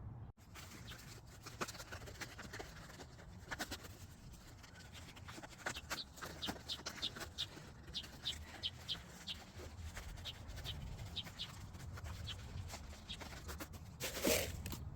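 A bird chirping repeatedly in the background, short high notes about twice a second, over a low steady hum.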